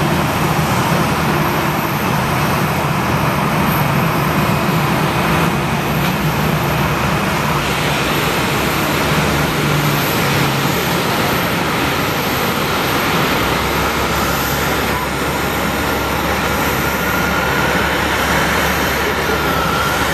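Airbus A320's CFM56 turbofan engines running at taxi idle: a steady jet rumble and hiss, with a faint whine near the end.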